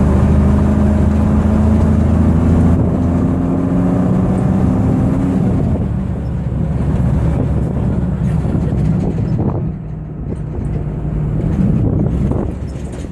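Tour vehicle's engine running as it drives along, a steady low hum for about the first five seconds that then turns to a rougher rumble with some road and wind noise.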